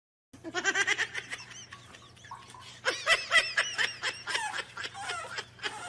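A person laughing in several bouts of quick, high giggles, with short pauses between them.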